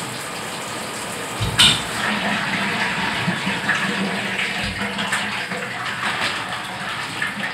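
Water running into a bathtub as a dog is rinsed, with a loud thump about one and a half seconds in; the running water stops near the end.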